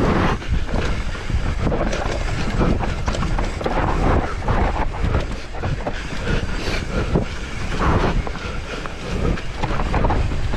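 Mountain bike being ridden over rough trail: a continuous rattle and clatter of the bike and tyres over the ground, with a heavy rumble underneath.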